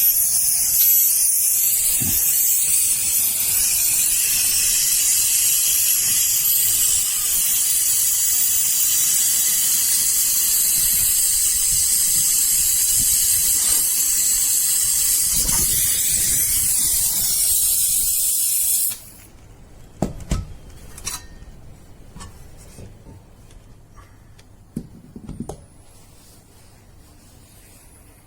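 Loud, steady spraying hiss of air or gas, like a blow gun or aerosol, that cuts off suddenly about two-thirds of the way through. After it come a few scattered clicks and knocks from parts being handled.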